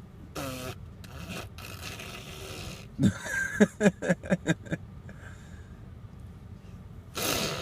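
A toddler blowing raspberries, making fart noises by buzzing his lips, in raspy bursts. About three seconds in comes a quick run of short voiced pulses, and a louder buzzing burst comes near the end.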